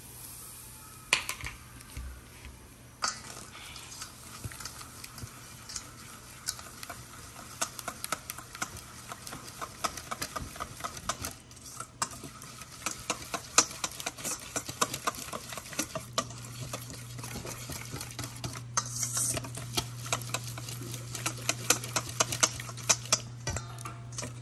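Icing of melted butter, powdered sugar and 7-Up being stirred in a bowl, the utensil clicking against the bowl again and again in an irregular rhythm that speeds up and gets busier as the mixing goes on. A low steady hum runs underneath and gets louder about two-thirds of the way through.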